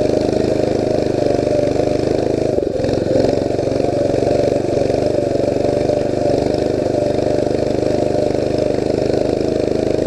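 Mini bike engine running steadily under way, its pitch dipping briefly about two and a half seconds in and then coming back up.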